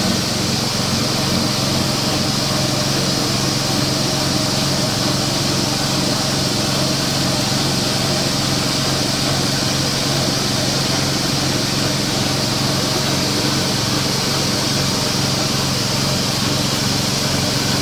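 Pellet crumble machine running steadily, its drive and rollers making an even, unchanging mechanical drone.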